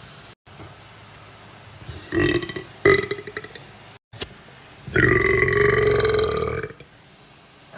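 Human burps: a couple of short burps about two seconds in, then one long, loud burp about five seconds in that lasts nearly two seconds.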